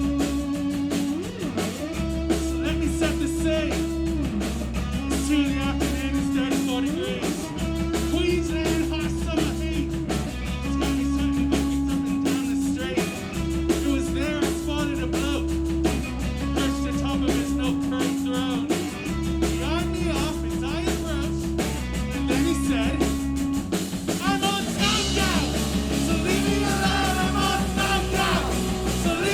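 Live punk rock band playing: an electric guitar riff of short held notes repeating about every second and a half over bass guitar and a drum kit with busy cymbals. The band grows fuller and brighter about 24 seconds in.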